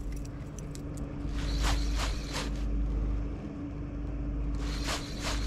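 Spinning reel cranked in two short spells of a few turns each, the stop-and-go retrieve used to hop a spinjig along the bottom. Under it runs a steady low hum with wind rumble on the microphone.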